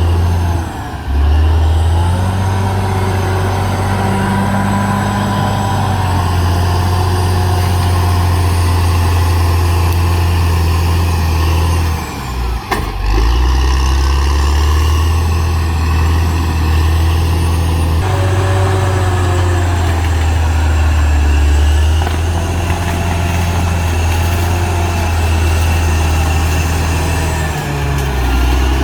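Caterpillar D6R XL bulldozer's diesel engine running as the dozer works, a loud steady low hum whose note shifts a few times and dips briefly about a second in, near the middle and near the end, with a fainter whine rising and falling above it.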